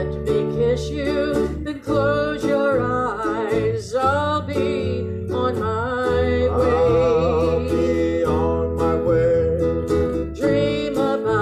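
Live country-style music: guitar accompaniment with a wavering, vibrato melody line over it.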